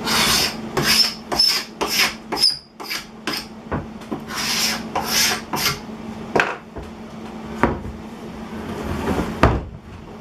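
Small hand scraper scraping dried glue squeeze-out off a glued-up wooden board: a run of quick strokes, then a few longer ones. A sharp knock comes near the end.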